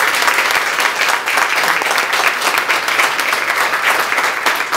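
Audience applauding: many people clapping hands in a dense, steady patter.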